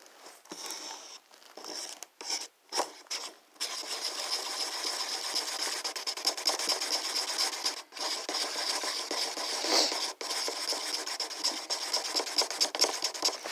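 Wooden craft stick stirring washable paint and Floetrol pouring medium in a paper cup, scraping against the cup in quick strokes. The stirring is patchy at first and becomes continuous about three and a half seconds in.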